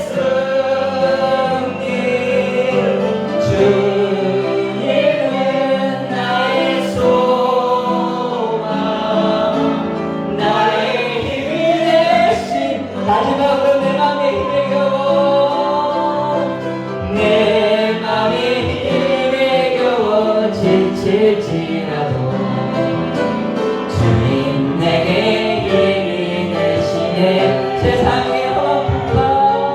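Church praise music: a group of voices singing a worship song over instrumental accompaniment.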